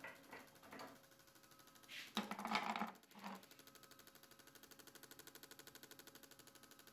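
A few light knocks, then a short clatter about two seconds in, followed by a faint, fast, steady mechanical ticking.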